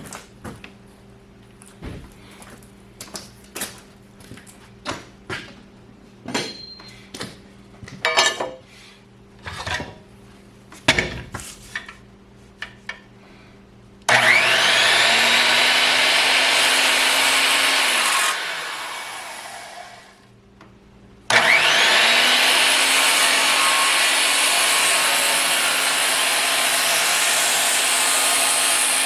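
Scattered knocks and clicks of handling, then an electric saw starts with a rising whine and cuts into a timber header, winds down and stops after about four seconds, and starts again a few seconds later, running steadily to the end.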